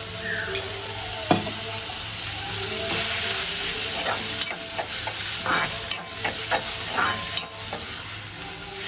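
Grated bottle gourd sizzling as it is sautéed in ghee in a metal kadai, stirred with a steel spoon that scrapes and clicks against the pan now and then.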